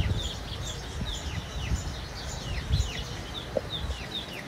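Small birds chirping, a steady run of short calls that fall in pitch, about three a second. Underneath is a low rumble with a few dull thumps on the microphone.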